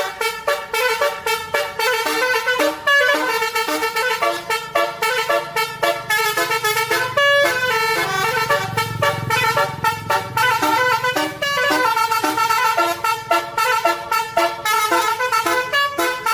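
Bus 'telolet' musical horn playing fast melodies of short, quick-changing notes without a break. A low rumble runs underneath, strongest about halfway through.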